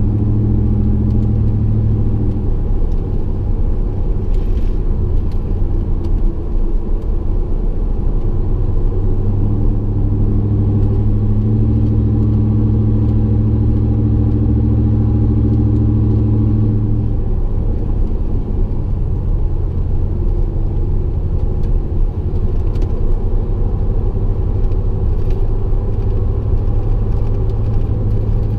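The 5.3 L V8 exhaust of a 2015 Chevy Silverado fitted with Kooks long-tube headers and a Carven RPT muffler, heard from inside the cab while driving: a steady low drone over tyre and road noise. The drone grows louder for about five seconds in the middle, then eases back.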